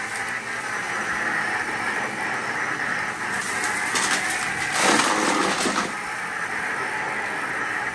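Vacuum cleaner running with a steady whine. About three and a half seconds in, a stretch of crackling and rattling lasting about two seconds as debris is sucked up.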